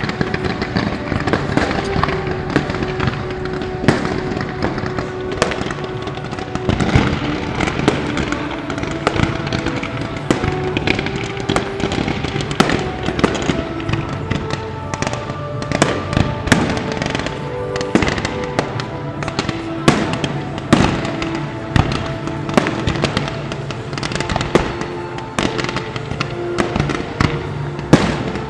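Fireworks display: a rapid, irregular run of sharp bangs and crackles from bursting shells, with music playing underneath.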